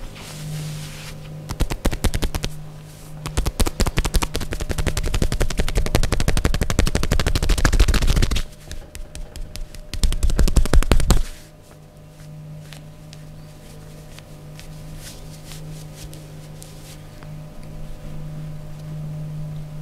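Rapid percussive massage strikes on the body: a fast, even run of strikes builds over several seconds, eases briefly, then comes again strongly and stops abruptly about eleven seconds in, leaving only a few faint taps. A steady low hum runs underneath.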